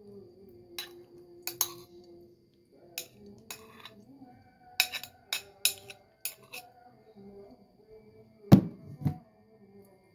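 Kitchenware clinking as a boiled herbal mixture is strained: about ten sharp clinks and taps of utensils against a glass bowl, then two heavier knocks near the end.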